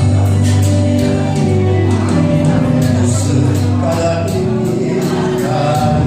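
A song with singing over held instrumental chords and a steady, quick percussion beat.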